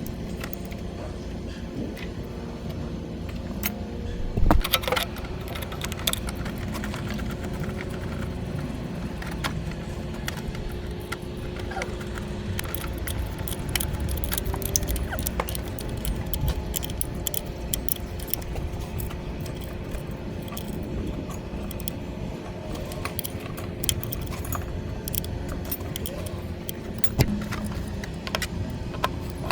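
Metal tools and parts clinking and clanking in irregular taps during hydraulic pump installation work, with a louder clank about four and a half seconds in, over a steady low hum.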